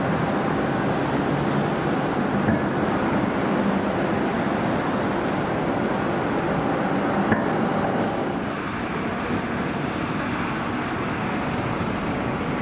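Boeing KC-46A Pegasus's twin turbofan engines running steadily as the tanker rolls along the runway, heard across the airfield; the sound eases off a little about eight seconds in.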